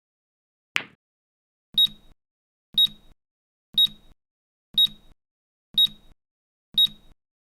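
A single sharp click of Newton's cradle balls, then the timer's alarm gives six short, high beeps about a second apart.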